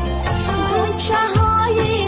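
A Persian song playing, with a sliding melody line over a steady bass and no sung words.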